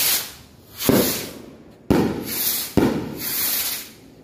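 Small sky rockets (kwitis) launching one after another: each goes off with a sharp crack and a rushing hiss that fades over about a second. There are three in quick succession about one, two and three seconds in.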